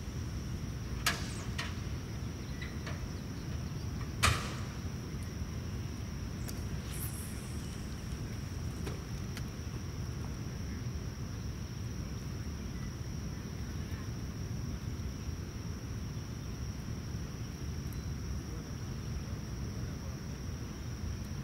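Fishing rod and reel worked for snagging: a sharp click about a second in and a louder swish-like snap about four seconds in, over a steady outdoor background with a thin high drone.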